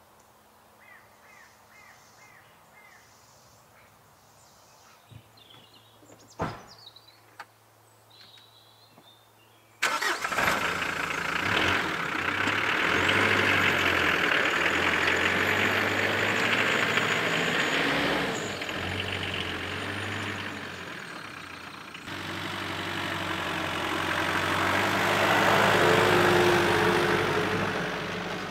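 Faint birdsong and a single knock for about ten seconds, then the engine of a 4x4 pickup truck suddenly comes in loud and runs as the truck drives across grass, growing louder again near the end as it comes close.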